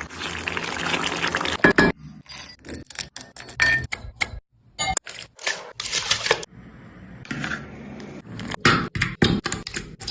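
Kitchen clatter: metal utensils clinking and scraping against cookware in quick, irregular knocks, with a stretch of scraping noise in the first two seconds.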